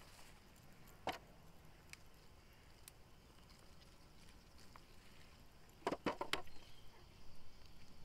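Potato plants and soil being handled while potatoes are pulled up: a single sharp knock about a second in, a short burst of crackling rustles around six seconds, and rustling of stems and foliage near the end.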